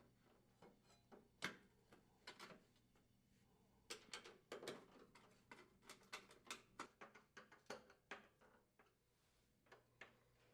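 Faint, irregular clicks and taps of a Phillips-head screwdriver and metal screws as an oven door handle is fitted back on and its upper screws are driven in. The clicks come thickest in the middle stretch.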